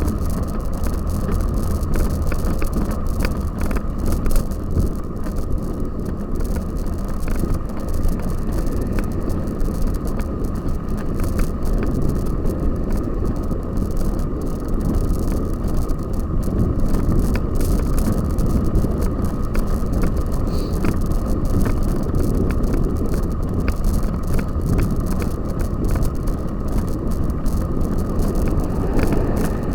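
Cyclocross bicycle ridden over rough ground, heard from a camera on the bike or rider: steady wind rush on the microphone with constant rattling and clicking from the bike.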